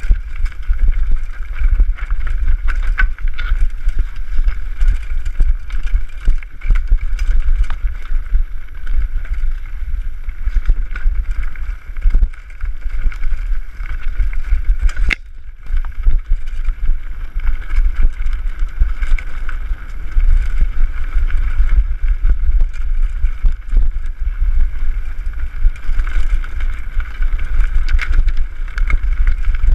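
Wind buffeting the microphone of a mountain bike riding fast down a rough dirt trail, a steady low rumble. Frequent short knocks and rattles come from the bike jolting over the bumps. The sound cuts out briefly about halfway.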